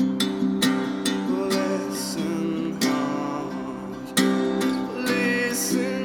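Acoustic guitar strumming chords in an instrumental break of a folk song, ringing in the natural reverb of a large empty warehouse.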